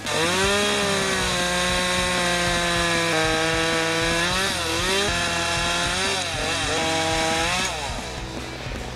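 Two-stroke chainsaw running at full throttle while cutting wood, its pitch dipping twice under load and recovering. It eases off near the end.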